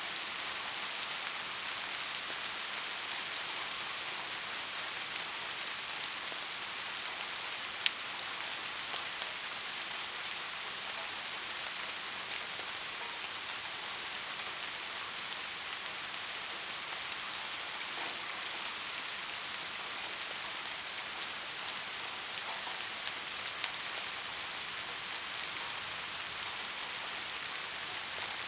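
Steady soft rain falling, an even hiss with scattered individual drops ticking, one sharper drop about eight seconds in.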